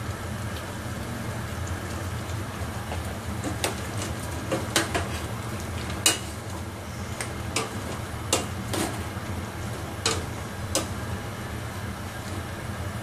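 Metal spoon clinking and scraping against a stainless steel pot as a curry of beef, carrot and potato chunks is stirred, with scattered irregular clicks, the sharpest about six seconds in. A steady low hum runs underneath.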